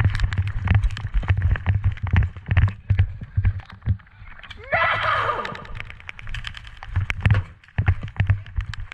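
Rapid irregular thuds and clicks, like hurried footsteps and rattling gear, with a short, high, wavering yell about five seconds in.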